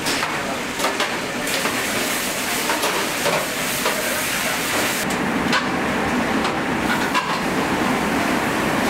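Commercial kitchen at work: a steady hiss with frequent clinks, knocks and clatter of pans and utensils on stainless steel.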